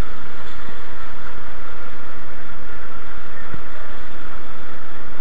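Loud, steady noise of a sport-fishing boat under way, picked up by a camera mounted at the stern: engine drone mixed with wind and water.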